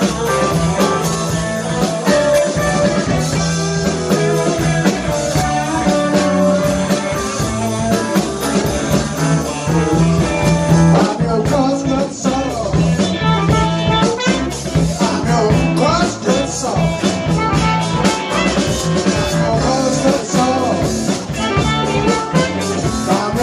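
Live blues band playing: electric guitar, bass guitar, drum kit, keyboard and saxophone.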